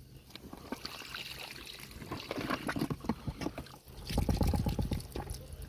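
Water dribbling and trickling out of a wet zippered mesh fish trap as it is lifted and handled over wet riverbank stones, with small crackles and rustles of the mesh. About four seconds in there is a louder stretch of rustling and knocking.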